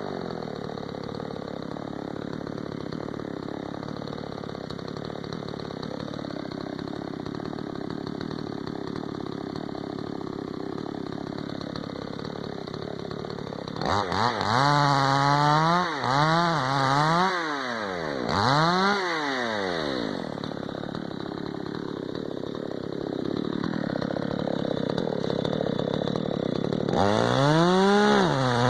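Tekna CS 58 54 cc two-stroke chainsaw running steadily at lower revs for about fourteen seconds, then revved up and down several times. It settles again and revs up high near the end.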